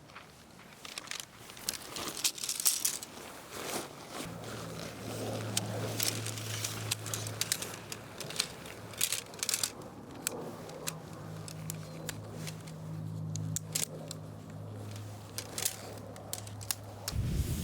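Small objects being handled, with clinks, rattles and crinkling, over a low steady hum that comes in about four seconds in.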